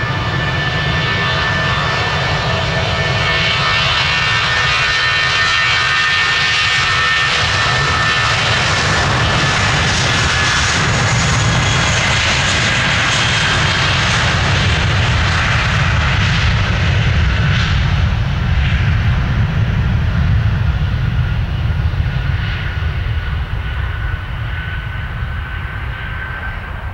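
Airbus A320's IAE V2500 turbofan engines at takeoff thrust during the takeoff roll: a high whine over a deep rumble, growing louder as the airliner passes and fading in the last several seconds as it rolls away.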